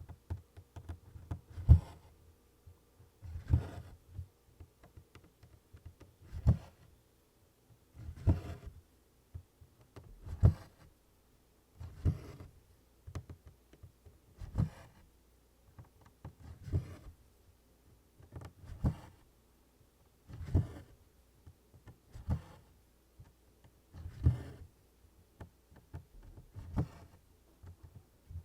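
Needle punching through taut 24-count Congress cloth and DMC embroidery floss being drawn through it while working tent stitches: a sharp tap with a low thump about every two seconds, with a soft rustle of thread between taps.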